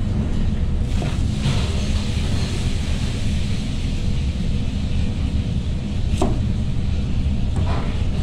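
A kitchen knife cutting through cabbage onto a cutting board, a few separate knocks of the blade, over a steady low rumble.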